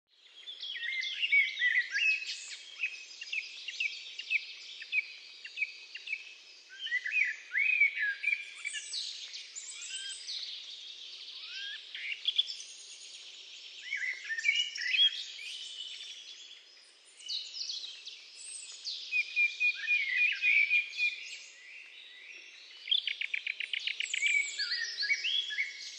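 Several songbirds singing at once, their songs and chirps overlapping. Near the end one gives a fast, even trill.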